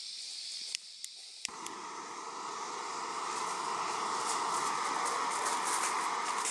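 Canister gas camping stove being lit: a thin hiss of gas from the open burner, a few sharp clicks, and on the last click the burner catches and settles into a steady rushing roar that grows louder.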